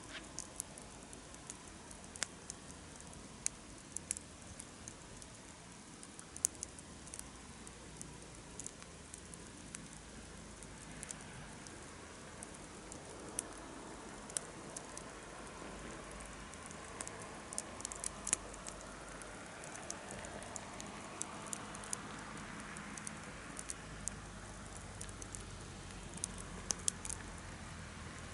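Wood campfire crackling, with irregular sharp pops and snaps over a steady low hiss.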